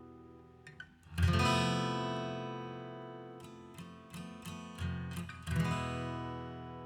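Acoustic guitar music: a strummed chord about a second in rings out slowly, then a few lighter strums lead to another ringing chord.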